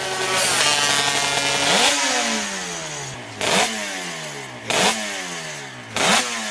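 Racing motorcycle engine revving: the pitch climbs over the first two seconds, then falls away, broken three times by a sharp loud blip roughly every second and a half where the pitch briefly jumps up before falling again.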